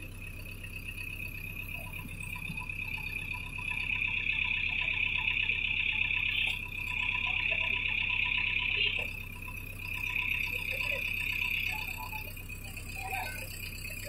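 JCB 3DX backhoe loader's diesel engine running with a steady low hum, overlaid by a high whine that swells from about four seconds in to about nine seconds, drops, and comes back briefly a little later.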